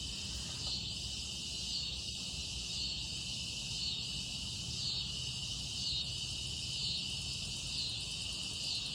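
Night insect chorus of crickets: a steady, unbroken trill, with a second higher insect call pulsing about once a second over it and a low background rumble.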